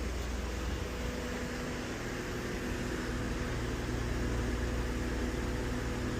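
Steady machinery drone: an even rushing noise with a constant low hum and a couple of steady tones, unchanging throughout.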